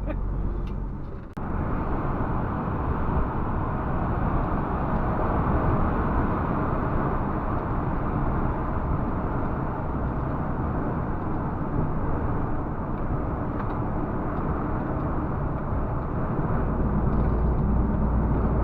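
Steady driving noise inside a MAN TGX 470 truck cab: an even rumble of engine, tyres and wind. It cuts in abruptly about a second in.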